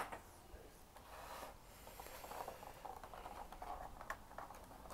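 Faint rustling and scraping of a diecast model's cardboard box being handled and opened, with a sharp tap right at the start and a few light ticks near the end.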